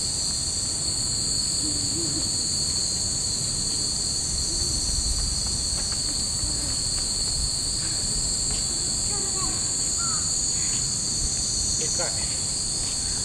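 A dense chorus of cicadas in the trees, a continuous high-pitched shrill that holds steady throughout.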